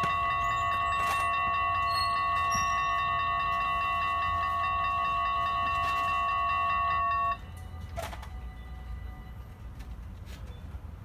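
Dutch level-crossing bells ringing steadily while the half barriers rise, cutting off suddenly about seven seconds in as the crossing clears. A single knock follows about a second later, then low traffic and wind rumble.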